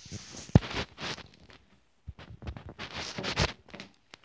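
Handling noise: rustling and scraping with a sharp knock about half a second in, and a second stretch of rustling around three seconds in.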